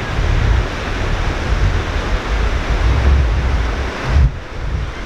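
Wind buffeting the microphone over a steady rush of surf on the beach.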